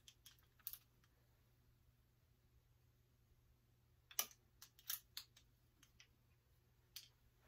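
Plastic clothes hangers clicking against a metal clothing rail as garments are pushed along it: a couple of clicks near the start, a quick cluster about four to five seconds in, and a few more near the end.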